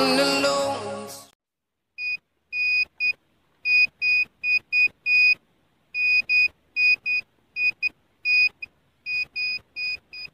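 A music track stops about a second in. Then a handheld treasure-hunting detector beeps in an irregular run of high, even-pitched electronic beeps, some short and some longer.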